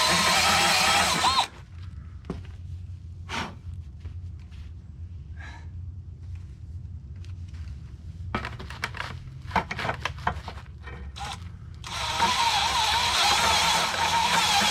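Electric drill boring through steel with a dulled bit, with a wavering squeal from the bit in the metal; it stops about a second and a half in, leaving scattered clicks and knocks, and starts drilling again about twelve seconds in.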